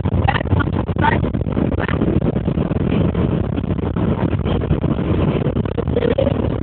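Moving school bus heard from inside the cabin: a steady low rumble of engine and road noise, with indistinct voices over it.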